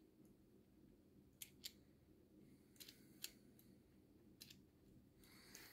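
Near silence with a handful of faint, short clicks: small metal parts of a nitro engine being handled as an oiled cylinder sleeve is worked into its crankcase.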